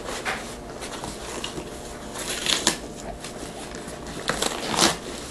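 Wrapping paper crinkling and tearing as a present is unwrapped, in a few short rustles.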